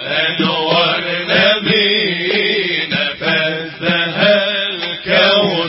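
Voices singing an Aleppine Islamic nasheed in a chanting style, the sung line held and bending in pitch.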